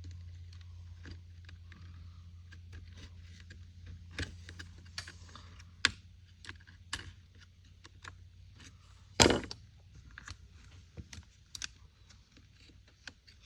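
Scattered small clicks and taps of plastic handle parts and small metal pieces being fitted by hand into a chainsaw's top handle, with one louder knock about nine seconds in.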